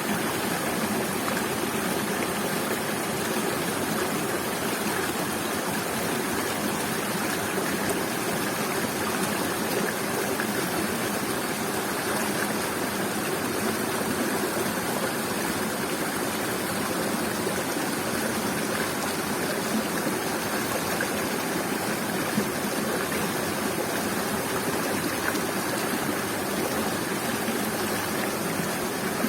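Waterfall and stream water rushing and splashing: a steady, even roar of falling water with no pauses.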